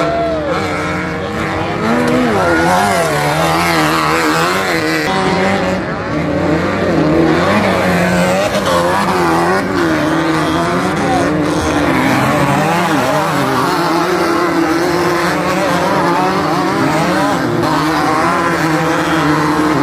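Engines of several off-road race buggies revving through a dirt turn, overlapping, their pitch rising and falling as they lift off and accelerate again.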